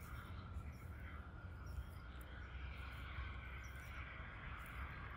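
Steady background ambience: a low rumble with a faint higher hiss, slowly growing louder.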